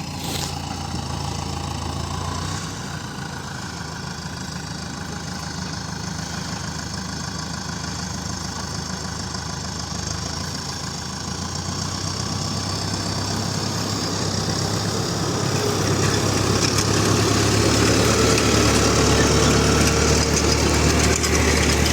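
New Holland TD4.100F tractor engine running steadily, growing louder over the second half and holding there.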